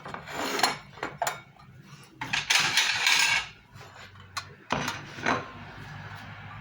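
Fresh ginger root being scraped on a metal hand grater: several irregular rasping strokes, the longest and loudest about two and a half seconds in.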